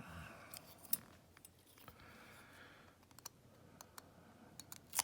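Light, irregular metallic clicks and clinks of a Lishi pick being handled and worked into a Schlage padlock's keyway.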